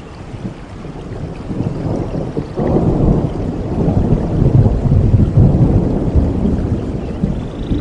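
Thunder rumbling over steady rain. The low rumble swells sharply about two and a half seconds in, stays loudest through the middle, then slowly eases.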